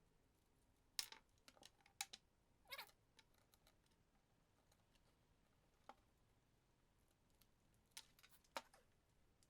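Near silence broken by a few faint, short clicks and taps, several in the first three seconds and a couple more near the end.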